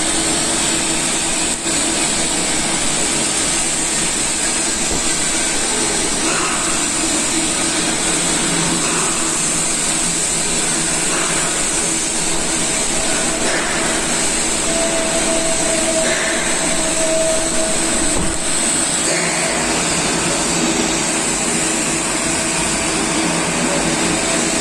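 TIG argon welding on a stainless steel conveyor shaft: a steady, unbroken hiss and hum.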